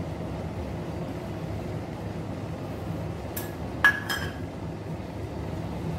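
Three quick clinks of a steel spoon against kitchenware, about three and a half to four seconds in, the middle one loudest with a short ring, over a steady low background noise.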